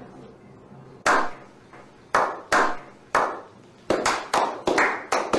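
A few people clapping slowly and unevenly: separate single claps, each with a short echoing tail, about a second apart at first and quickening near the end.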